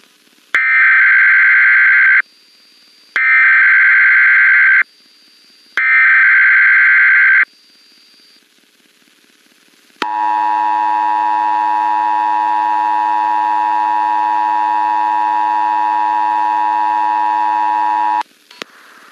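Emergency Alert System tones: three short buzzing bursts of the digital data header, with about a second between them, then after a short gap the steady two-tone attention signal held for about eight seconds, which cuts off abruptly. It marks the monthly coordinated test of the alert system.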